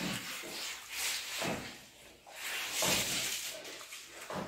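Hands squishing and mixing rice with egg curry on steel plates, in several irregular wet bursts, with chewing mouth sounds.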